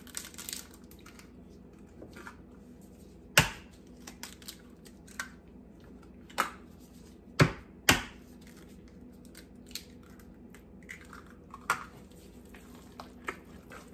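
Eggs being cracked into a large metal pan of cornbread dressing: several sharp clicks and taps of eggshell, a few seconds apart, with softer crackles of shell being pulled open between them.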